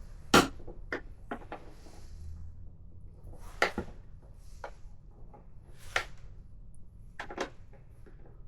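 Scattered sharp clicks and knocks of small hard parts and hand tools being handled, about eight in all, the loudest just under half a second in.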